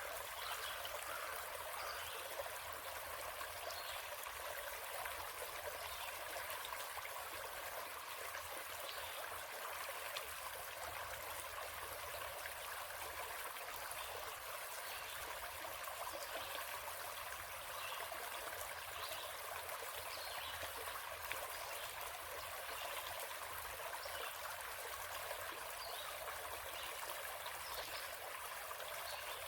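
Small forest stream running and trickling steadily over rocks, with light bubbling splashes.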